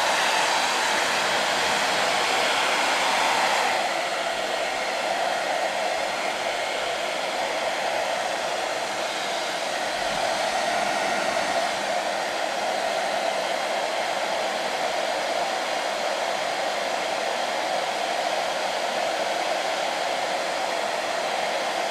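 Handheld hair dryer running steadily, blowing hot air onto a plastic car bumper to soften it so a dent can be pushed out. It drops a little in loudness about four seconds in.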